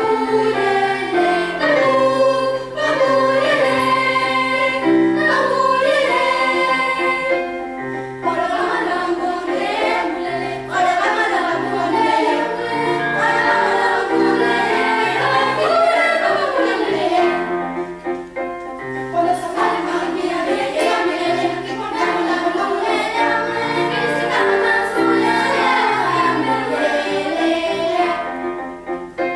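Children's choir singing a song in several parts, the voices moving in pitch together over low held notes.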